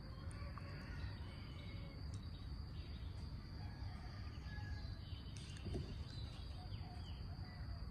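Faint background ambience: a steady high-pitched insect trill, with scattered faint bird chirps and low steady background noise.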